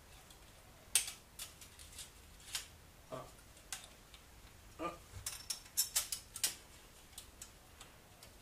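Irregular light metallic clicks and taps of parts and hand tools being handled on a Nissan VQ35DE V6 engine during teardown. The clicks come thickest about five to six and a half seconds in.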